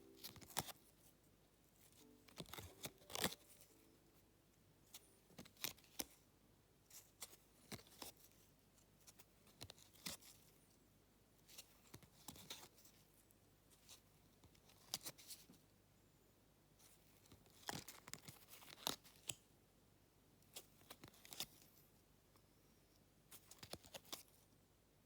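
Photo-card packaging handled and opened by hand: irregular short crinkling and tearing sounds with quiet gaps between them.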